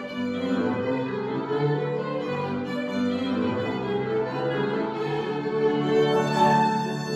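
Violin playing a melody over organ accompaniment, in a live church performance.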